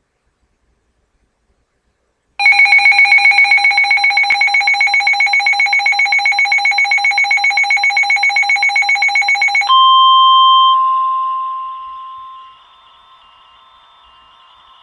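Emergency Alert System warning tones: after a short silence, a loud, rapidly pulsing electronic buzz of several mixed pitches sounds for about seven seconds. It then switches to a steady single tone of about 1 kHz that fades out over a few seconds into faint receiver hiss.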